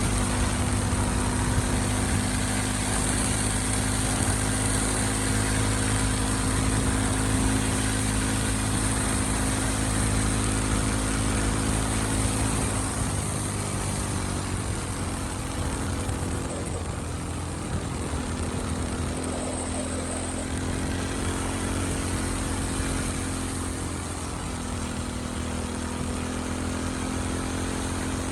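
Motorcycle engine running steadily while riding; about halfway through its pitch drops as it eases off, then it holds steady again.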